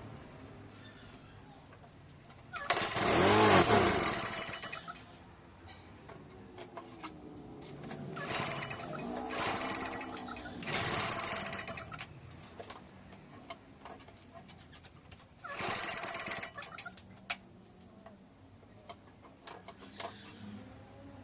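A Snapper lawn mower's small engine is pull-started three times. Each time it catches for one to two seconds, rising and falling in pitch, then dies. It sputters and won't keep running, the misfiring, hard-starting fault it is being repaired for.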